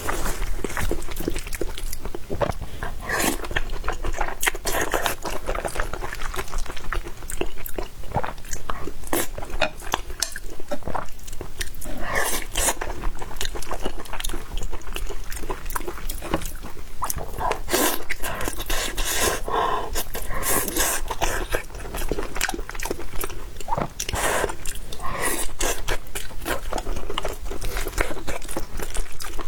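Close-miked chewing and mouth sounds of a person eating, a continuous run of small smacks and clicks.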